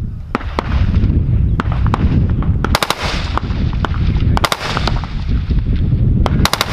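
CZ BREN 2 assault rifle firing on a range: a string of single shots, with a quick burst of several rounds a little under three seconds in and another near the end, over a steady low rumble.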